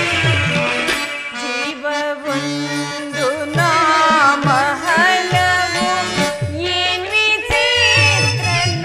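Live stage-drama accompaniment music: tabla strokes under an ornamented melodic line with sliding, wavering notes, played by a small ensemble of keyboard, tabla and clarinet.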